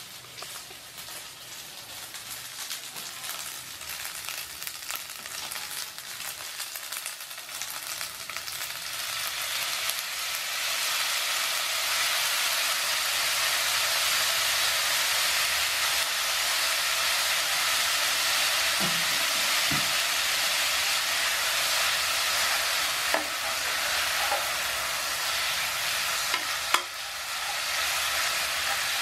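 Yakisoba noodles and sausage slices sizzling in a frying pan. The sizzle builds over the first ten seconds or so, then holds steady, with a few sharp knocks of a spatula against the pan near the end.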